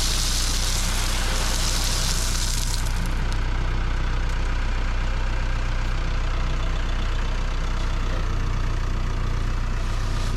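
Tractor engine running steadily with a deep, even drone, with a high hiss over it for the first few seconds.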